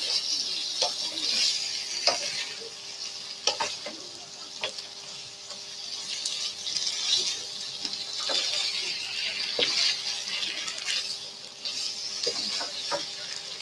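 Fried kuey teow noodles sizzling in a hot pan while a spatula turns them over, with scattered scrapes and clicks of the spatula against the pan.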